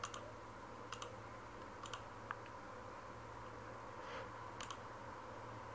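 Faint clicks of a computer mouse, about six spread over a few seconds, several coming as quick pairs, over a low steady hum.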